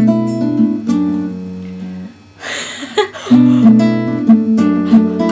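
Acoustic guitar playing plucked chords, breaking off about two seconds in for a short noisy rush before the chords start again.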